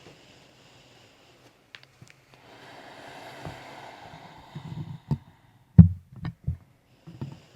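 Chiropractic manual adjustment of the right side: a soft rushing sound, then a low thump and a quick series of sharp joint cracks and pops, the loudest about two-thirds of the way in.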